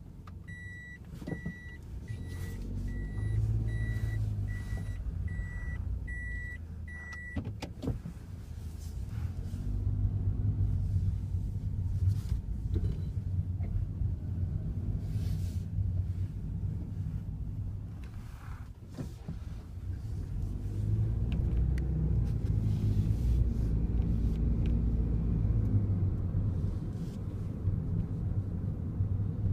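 Kei-car cabin while driving: engine and road rumble that swells and eases. For the first seven seconds or so a dashboard warning chime beeps about one and a half times a second, with scattered faint clicks throughout.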